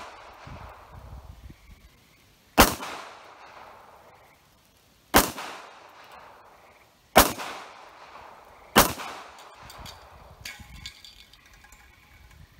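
Four pistol shots at irregular intervals over about six seconds, each followed by a short echo that dies away.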